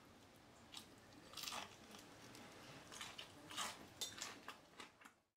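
Crispy flour-breaded fried chicken crust crunching faintly as a piece is squeezed and broken by hand, a few soft crackles.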